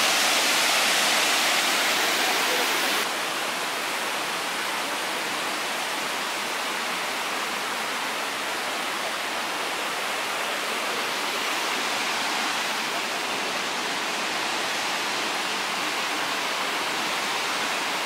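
Steady rushing of Fukuroda Falls, a large multi-tiered waterfall, heard close at first. About three seconds in it drops suddenly to a softer, more distant rush of falling water.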